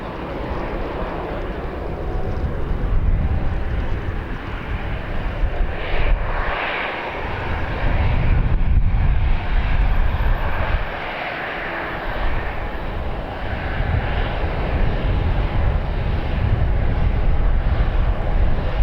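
Aircraft engine noise at an airfield: a continuous rushing sound with a strong low rumble that swells and drops, briefly easing twice.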